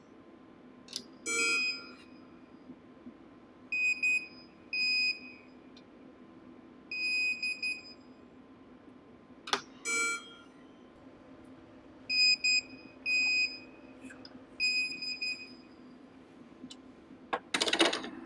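Short electronic beeps of one steady high pitch, singly and in close pairs every second or few, from a digital torque wrench signalling that a bolt has reached its set torque of 15 Nm. A few sharp metallic clicks fall between them, and a brief clatter comes near the end.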